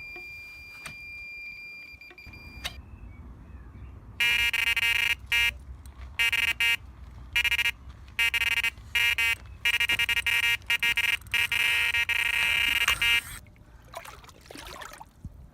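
Electronic carp bite alarm (bite detector) sounding from about four seconds in for some nine seconds, almost without a break, as a carp takes line: a run. Under it there is a low rumble.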